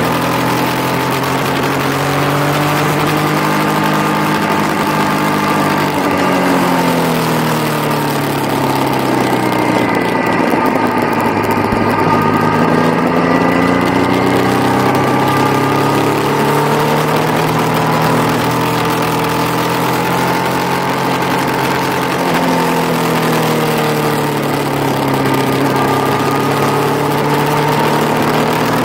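Yamaha motorcycle engine running at speed on a race track. Its pitch falls twice as the rider slows for a corner and climbs again as he accelerates out, over a steady rush of wind.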